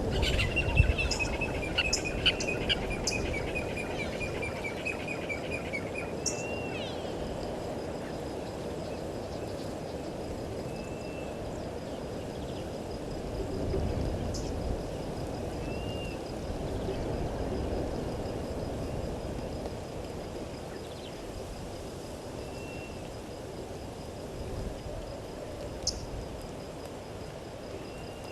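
Wild birds calling over a low outdoor background. A rapid run of notes falls slightly in pitch over the first six seconds, then single short chirps come about every five seconds, with a faint steady high tone underneath.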